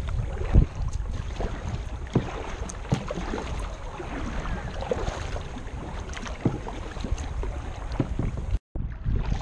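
Kayak paddling on a river: paddle splashes and scattered knocks against the hull, under a steady rumble of wind on the microphone. The sound cuts out completely for a moment near the end.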